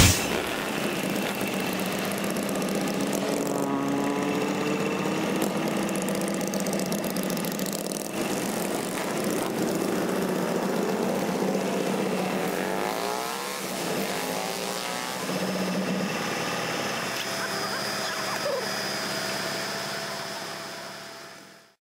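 Motorcycle engine running, its pitch rising and falling a few times as it revs. It fades out near the end.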